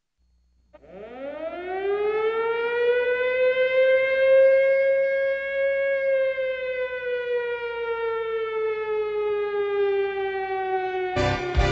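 A siren winds up from a low pitch over the first few seconds, holds, then slowly sinks in pitch. Music cuts in near the end.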